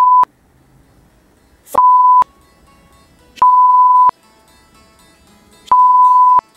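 Censor bleeps: four bursts of a steady, high beep tone, each about half a second long, covering swear words. The first comes right at the start and the others about two, three and a half, and six seconds in.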